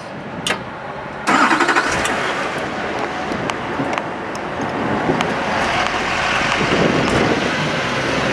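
Bucket truck's engine starting with a sudden rise in sound about a second in, then running steadily.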